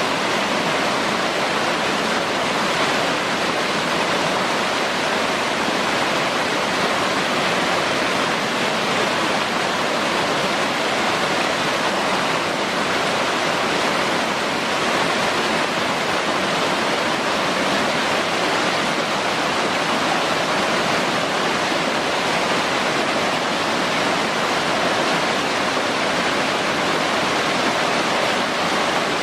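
Rushing water, a steady and unbroken rush of falling and flowing water at an even level.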